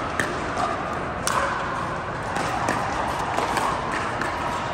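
Pickleball paddles striking a hard plastic ball in a rally: sharp pops about a second apart, echoing in a large indoor hall over steady background noise.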